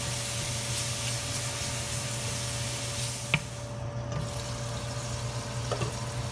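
Ground pork frying in oil in a stainless steel pot: a steady sizzling hiss, with one light clink a little over three seconds in.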